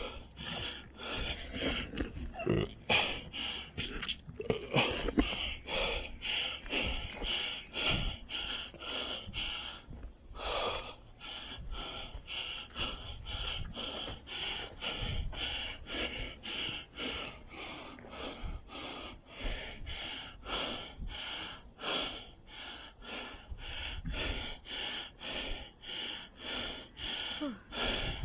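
A hiker breathing hard and fast while climbing a steep slope, quick rhythmic breaths about two or three a second.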